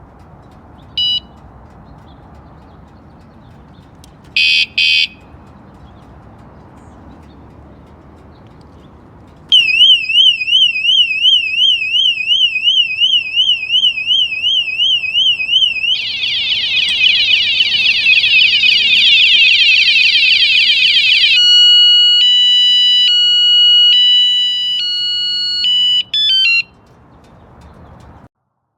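WSDCAM handheld bike alarm: a short chirp, then a double chirp, then its loud siren. The siren runs through several patterns: a fast warbling tone, then rapid repeated falling sweeps, then alternating beeping tones. It ends in a few quick chirps and cuts off near the end.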